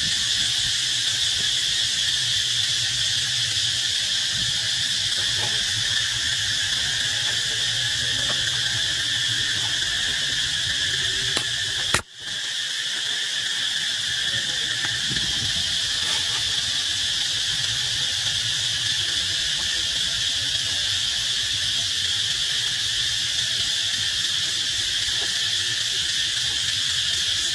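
Steady, high insect chorus. About twelve seconds in, a sharp click is followed by the sound cutting out and then fading back in over about a second.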